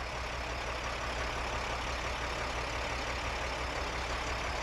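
Vactor sewer vacuum truck's engine running steadily at idle while the hydraulic boom is extended, a constant low hum with a hiss above it.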